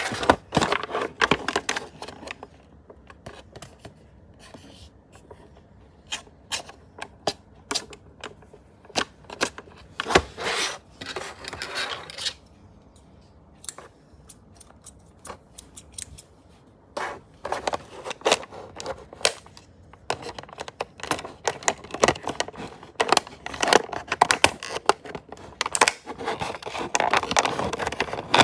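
A toy's clear plastic blister pack and cardboard backing card being handled and opened by hand. It comes in spells of irregular crinkling, crackling and sharp clicks, with quieter pauses between them.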